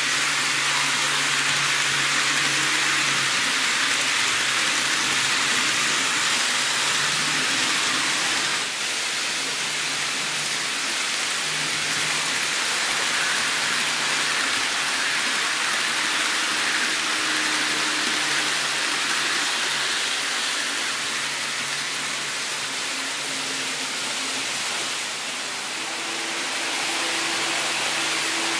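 N scale model trains running on the layout's track: a steady rushing hiss of wheels rolling on rail, with a faint motor hum that now and then changes pitch.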